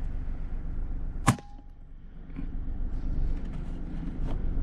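A single shot from an Air Venturi Avenger .25 PCP air rifle about a second in: one sharp, short crack with a brief ring after it. A couple of faint ticks follow.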